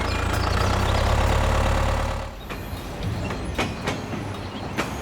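A motor running with a steady low hum that cuts off about two seconds in, followed by scattered light clicks and knocks.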